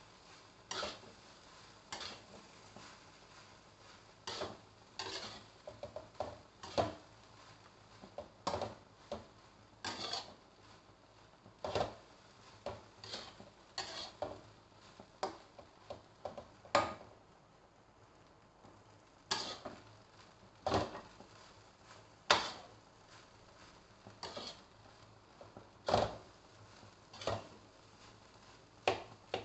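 Spatula scraping and knocking against a wok while stir-frying fried rice, in irregular strikes about once a second with a short lull partway through.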